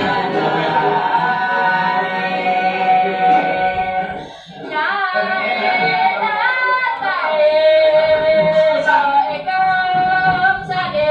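A woman singing, holding long drawn-out notes, with a short break about four seconds in.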